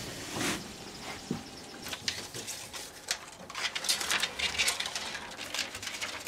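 Irregular light clicks and rustling of cinema film and metal roller parts being handled by hand while film is threaded through a projector's platter feed.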